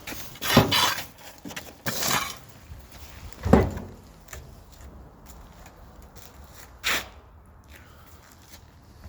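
Liebherr refrigerator being handled: a few knocks and rattles, with a heavy thump about three and a half seconds in and a short sharp clack near seven seconds, like its door, shelves and drawers being opened and shut.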